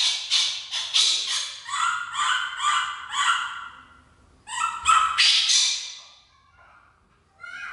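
Baby monkey crying with a rapid string of high-pitched calls, a few a second. After a short break a second run of calls follows, then it falls quiet with one faint call near the end.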